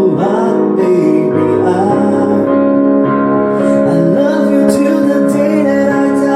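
Music: a female voice singing a slow pop song over piano and sustained keyboard chords.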